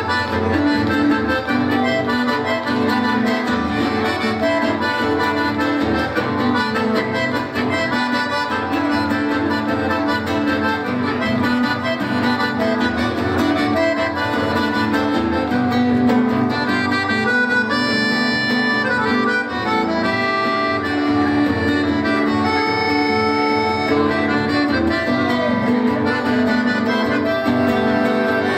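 Piano accordion and classical guitar playing an instrumental duet, the accordion carrying the melody in held notes over the guitar's accompaniment.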